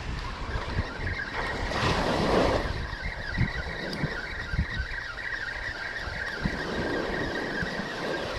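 Penn spinning reel being cranked to retrieve a hooked fish, its gears giving a steady, slightly wavering high whine, with wind on the microphone and surf washing ashore.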